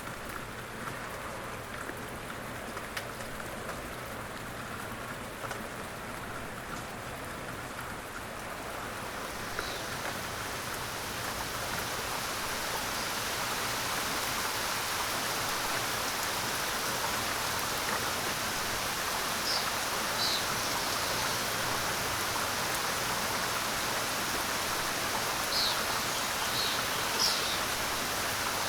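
Steady rain falling, growing heavier and louder about a third of the way through, then holding steady.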